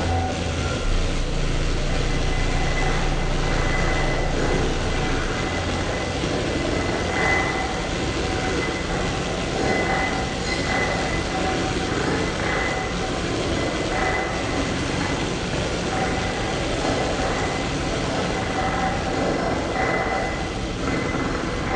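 Live experimental electronic noise music: a dense, steady wash of noise with thin high whistling tones that come and go, over a low drone that drops away after the first few seconds.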